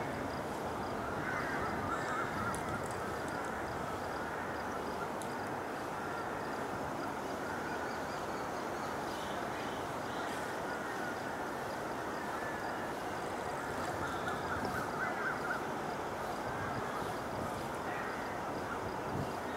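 Harsh bird calls in two spells, about a second in and again about two-thirds through, over a steady outdoor background rush.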